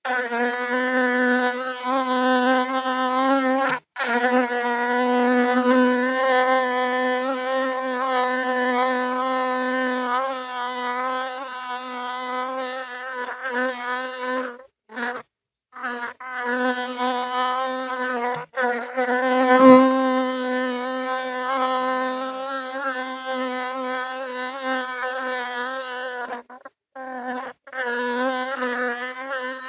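Honeybee buzzing: a steady, slightly wavering hum, broken by several short, abrupt gaps.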